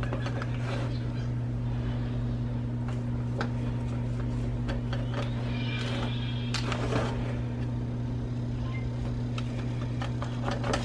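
A steady low electrical hum, with light scrapes and clicks of a knife cutting through brownies and touching an aluminium foil baking pan.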